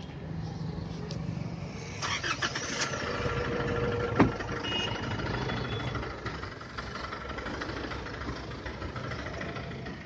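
Pickup truck engine starting about two seconds in, then running at idle. A car door slams shut about four seconds in.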